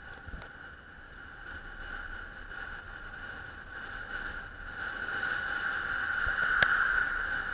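Steady high-pitched hum of a bicycle rolling on an asphalt road, carried into a camera mounted on the bike; it grows louder about five seconds in, and a sharp click comes near the end.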